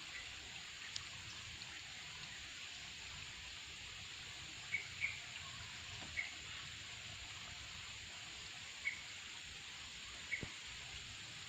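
Faint, steady high hiss of outdoor ambience, with short, high animal chirps a few times in the second half, two close together then singly every second or few.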